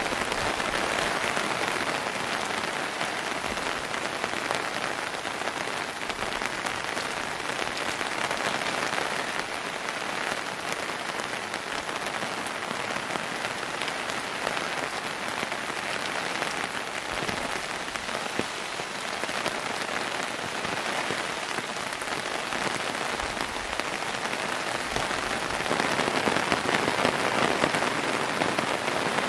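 Heavy rain falling steadily in a dense, even hiss of drops, growing louder for the last few seconds.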